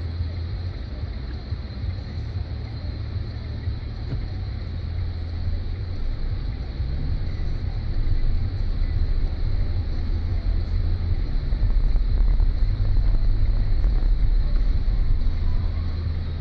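Car engine and road noise heard from inside the cabin, a steady low rumble. It grows louder about halfway through as the car moves off in traffic.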